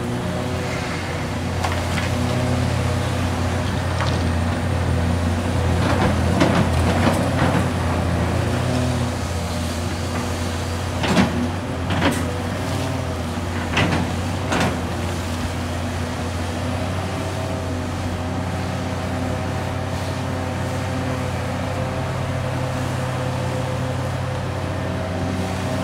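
Hitachi Zaxis 670LCR excavator's six-cylinder Isuzu diesel engine running steadily under hydraulic load while it digs and loads. Several short bursts of scraping and clatter from the bucket and earth stand out around the middle.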